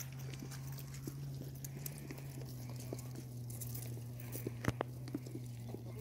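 Sheep grazing close by: many small irregular clicks and crunches of grass being torn and chewed, with one sharper knock about three-quarters of the way in. A steady low hum runs underneath.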